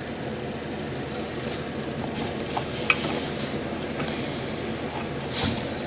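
Steady background hum with a few short hisses, typical of flux sizzling as a soldering iron tip is tinned with fresh solder.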